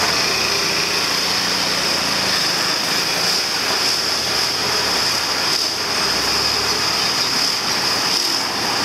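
Road traffic passing at close range: a steady mix of car and motorcycle engines and tyre noise, under a constant high-pitched buzz.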